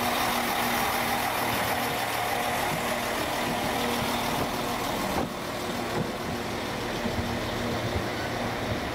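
Transport for Wales diesel multiple unit running past slowly, its underfloor engines humming steadily. About five seconds in, the sound drops sharply as the last coach passes, and a few clicks from the wheels follow.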